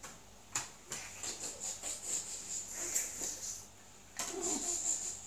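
A sealing strip being pulled off around the lid of a metal tin: a couple of sharp clicks, then two spells of scratchy crackling as the strip peels away.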